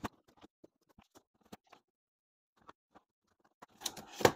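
Light plastic clicks and ticks of N scale sectional track pieces being handled and unclipped from each other, scattered and sparse. Near the end comes a louder run of clicks and a sharp snap, as a rail joiner (Unijoiner) breaks.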